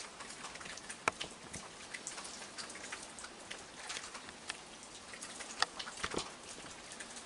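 Rain falling in a steady, quiet hiss, with scattered irregular drips and ticks.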